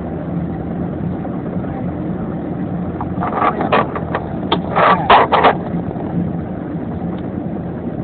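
Steady road noise and engine hum inside a moving vehicle's cabin. Between about three and five and a half seconds in, a cluster of short, sharp sounds rises over it.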